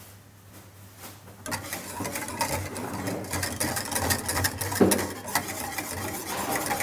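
Wire whisk beating a flour-thickened lemon sauce in a stainless steel saucepan, its wires scraping and rattling against the pan in quick strokes. It starts about a second and a half in.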